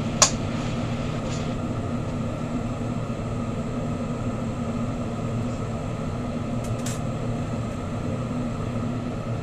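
Bethlehem Bravo bench torch burning with a steady roar as glass is worked in its flame. A sharp tick comes just after the start, and a fainter one about seven seconds in.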